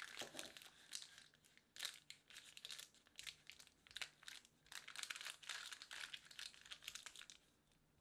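Parchment paper crinkling and rustling under a wooden rolling pin and pressing hands as cookie dough is rolled out between the sheets. It comes in a dense run of crackles that stops shortly before the end.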